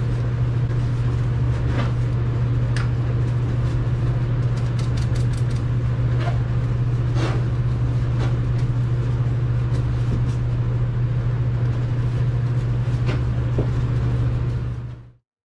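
A steady low mechanical hum, like a fan or motor running, with scattered light clicks and knocks from hand work; it cuts off abruptly near the end.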